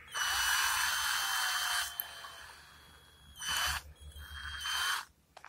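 Cordless drill motor run in short bursts to spin its keyless chuck shut on a masonry bit held in the jaws. A high whine for nearly two seconds that fades off, then two shorter bursts.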